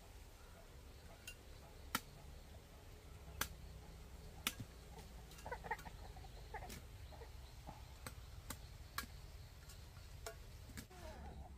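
Faint chicken clucking, a few short calls in the middle, among scattered sharp clicks or taps.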